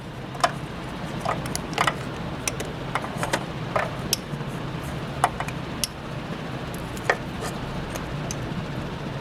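Light, irregular metallic clicks and taps of a screwdriver and a neutral safety switch being handled and fitted onto its shaft, over a steady low hum.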